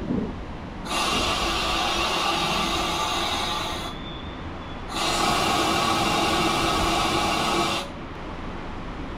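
Bernese Oberland Railway electric rack train moving slowly with a low running rumble. Two loud hissing bursts of about three seconds each break in, starting about a second in and again about five seconds in, and each cuts in and off abruptly.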